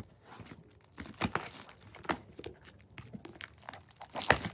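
Packaging being handled and torn open: irregular crinkling and tearing, with one sharper snap near the end.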